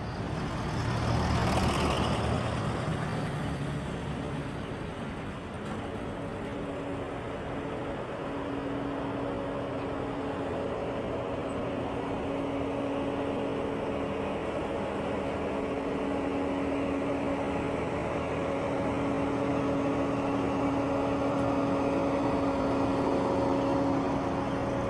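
Road traffic: a vehicle passes close by, its tyre and engine noise swelling to a peak about two seconds in and fading. Then a steady engine hum of unchanging pitch grows slowly louder.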